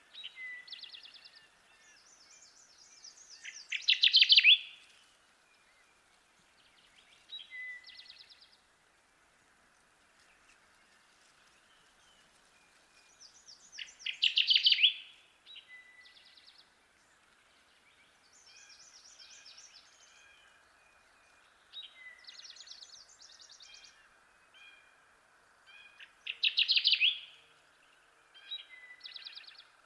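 Kirtland's warbler singing its loud, rapid song three times, about every ten to twelve seconds, with fainter, higher bird phrases in between, over a steady background hiss.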